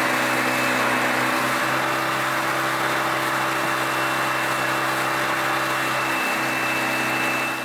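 Yamaha 25 hp four-stroke outboard motor running steadily at cruising speed, with a constant rushing noise over it, fading out near the end.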